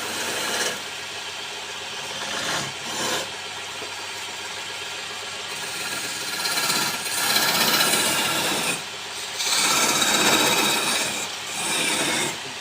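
Wood lathe running, with a turning tool or abrasive rubbing against the spinning wood. The rasping grows louder and fades again in several passes.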